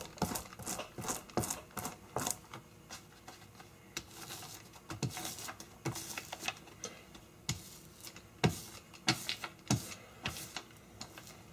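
A paper underlay sheet being glued up by hand: irregular light taps and short swishes as the glue is worked over the paper on the work table.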